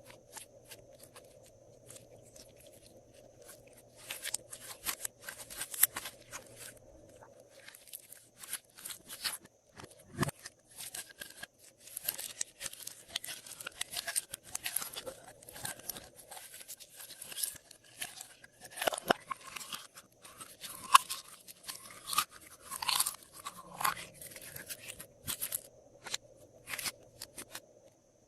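Glossy slime being squeezed and stretched by hand, making runs of sticky crackling and popping clicks that start about four seconds in and stop shortly before the end.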